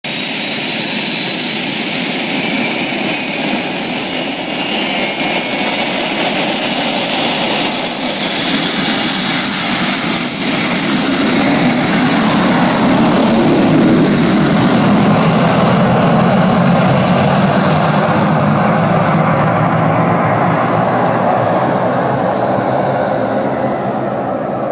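Sabreliner business jet taking off: a loud rush of jet noise with a high whine that rises in pitch over the first few seconds as the engines spool up to takeoff power, then holds steady. The sound slowly fades over the last several seconds as the jet climbs away.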